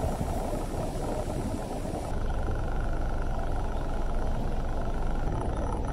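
A sailboat's engine running steadily at low speed, a low rumble with a faint steady whine coming in about two seconds in.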